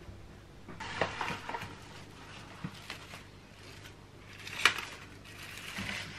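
Plastic cling wrap crinkling and rustling as it is stretched over a plate and pressed around the rim, with a few light clicks and one sharp tap a little past two-thirds of the way in.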